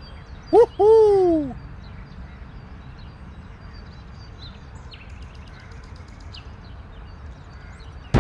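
A loud two-note whistle-like hoot: a short upward-sweeping note, then a longer note that rises briefly and slides down. Faint high bird chirps follow over a steady outdoor background.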